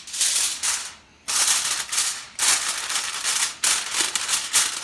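A sheet of aluminium foil crinkling and crackling in the hands as it is spread and pressed over a baking dish, in four bursts of about a second each.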